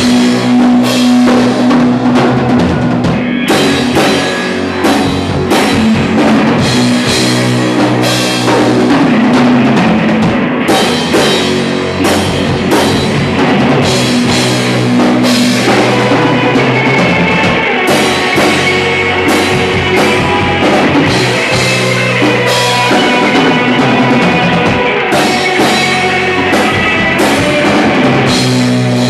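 Rock band playing live, loud and dense, with a drum kit keeping a steady beat under sustained low notes.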